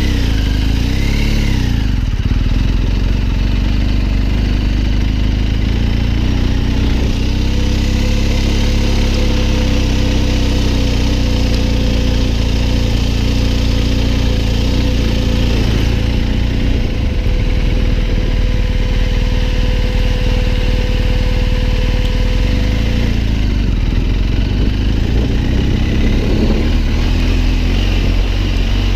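BMW R 1250 GS Adventure's boxer-twin engine running as the bike is ridden slowly. Its pitch rises and falls with the throttle near the start and again near the end, and it holds steady through the middle.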